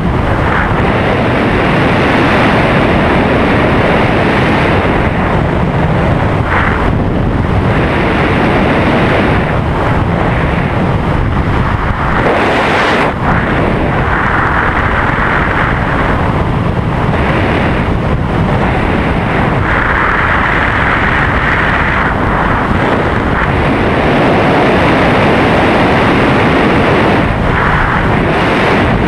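Loud, steady rush of air buffeting the microphone in freefall during a wingsuit or skydive flight. It shifts in tone now and then as the airflow changes.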